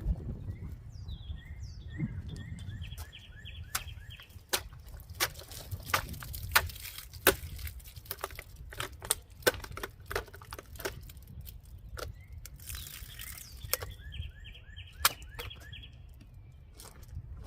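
Small blade of a Swiss Army Knife Classic SD clone being stabbed and struck into a target, making a string of irregular sharp knocks and taps, a few much louder than the rest. A bird chirps in quick runs twice in the background.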